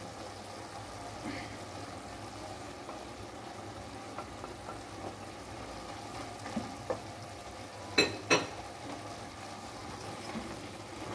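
Lamb and potato stew sizzling in a pot as a wet fry, stirred with a wooden spoon, with a few faint scrapes. Two sharp knocks come close together about three-quarters of the way through.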